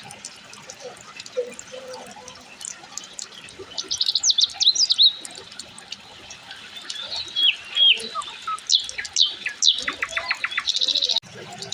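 Several birds calling: quick high chirps and rapid trills, loudest about four seconds in and again from about seven seconds to near the end, over a faint steady rush of water.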